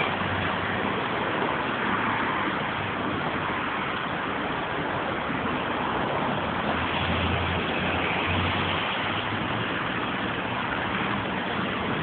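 Steady noise of a demolition site on a busy street: the diesel engine of a high-reach hydraulic demolition excavator running amid traffic, its low hum swelling for a while about seven seconds in.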